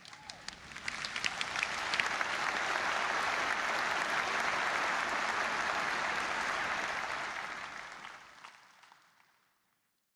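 Large audience applauding: a few scattered claps swell within about two seconds into steady, dense applause, which fades away near the end.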